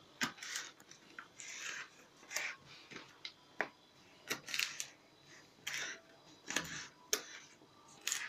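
Kitchen knife cutting fresh green beans on a plastic cutting board: about ten sharp, irregular chops and snaps, some followed by a short scrape.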